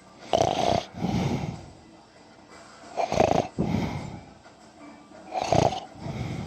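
A sleeping person snoring: three loud snores about two and a half seconds apart, each followed by a softer, longer breath.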